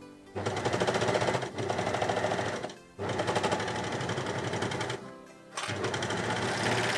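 Overlocker (serger) stitching through knit fabric in several short runs, stopping briefly between them. Background music plays underneath.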